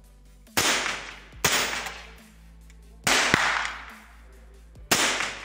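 Smith & Wesson M&P 15-22 semi-automatic .22 LR rifle firing four shots at uneven intervals, each crack followed by a long echo under the range roof.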